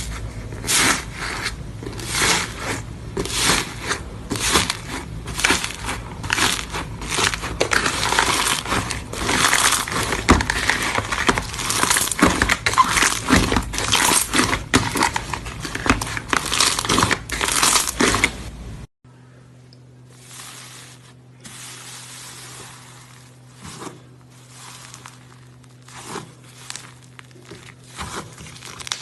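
Slime being squeezed and pressed by hand, giving dense, rapid crackling and crunching. About two-thirds in, it cuts to a quieter stretch of sparser crackles over a steady low hum.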